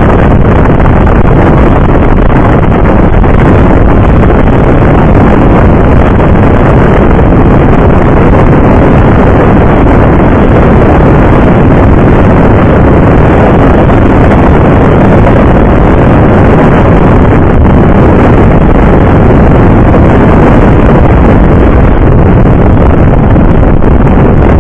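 Motorcycle running at highway speed, heard from a handlebar-mounted camera: a steady, loud rush of wind on the microphone mixed with engine and road noise.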